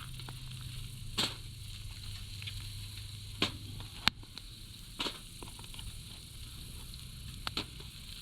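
Steaks and bacon-wrapped stuffed peppers sizzling over a fire pit, with about five sharp pops and crackles.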